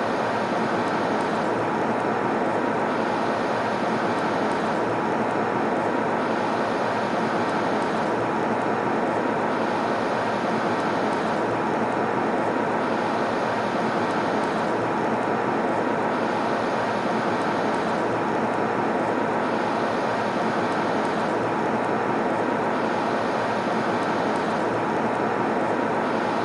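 Steady airliner cabin noise: an even, unbroken rush of engine and airflow sound, with a faint upper hiss that dips and returns about every three and a half seconds.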